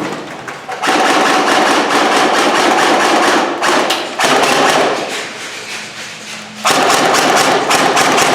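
Airsoft gun firing full-auto bursts close by, a rapid mechanical rattle: a long burst of about three seconds, a short burst, then another burst near the end.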